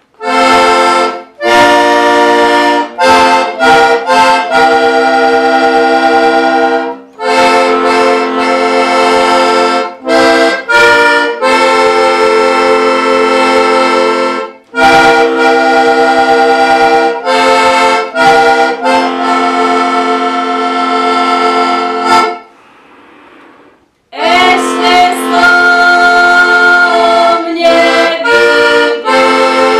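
Diatonic button accordion (heligónka) playing a folk tune in sustained chords over a bass accompaniment, with brief breaks between phrases and a pause of about a second and a half past the twenty-second mark. Near the end a woman's singing voice joins in.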